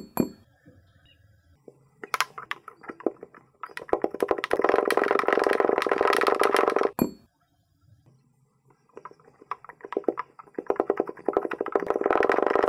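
Kinetic sand being pressed down with a wooden tamper into a glass champagne flute: a dense, crackly crunching of the packing grains. It comes in two long spells, one starting about four seconds in and another starting near the end, with scattered lighter crunches between.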